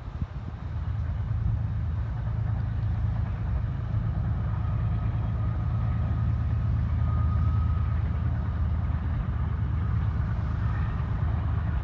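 Steady low engine drone, with a faint thin high tone in the middle.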